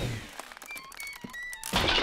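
Cartoon sound effects: a knock right at the start, a few short high tinkling notes, then a loud crash of shattering glass near the end, the sound of a cartoon character breaking into pieces like glass.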